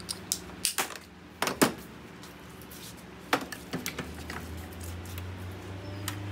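Metal-on-metal clinks and knocks from a steel bench vise as a motor rotor is clamped in it and the vise's handle bar is worked. There are a few sharp knocks in the first two seconds, the loudest about a second and a half in, then a cluster of lighter clinks around three to four seconds, over a steady low hum.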